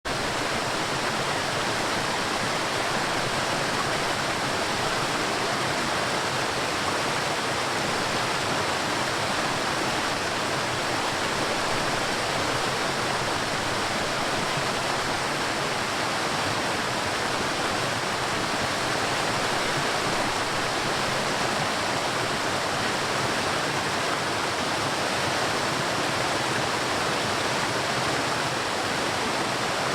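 Rushing water: a steady, unbroken wash of flowing water that does not change.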